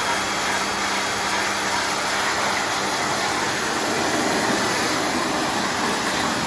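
Pressure washer spraying water at close range: a steady hissing rush with a faint low hum underneath.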